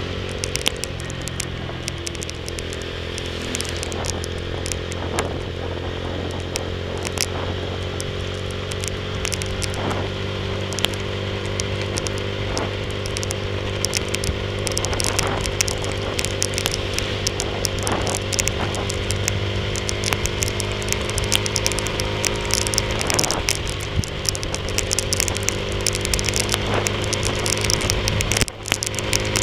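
Tormax 150 motorcycle engine running steadily while riding in the rain, its pitch creeping up slightly near the end, with raindrops ticking irregularly against the camera. The sound dips briefly near the end.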